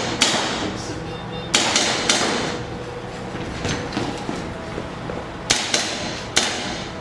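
Gas blowback airsoft pistol firing single shots: four sharp cracks at uneven intervals, each followed by a short echo.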